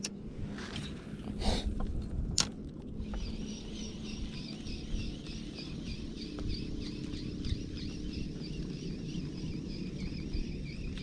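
Spinning reel being cranked to retrieve a lure, a rhythmic whirring that repeats several times a second from about three seconds in. It follows a few knocks and clicks from handling the rod and reel.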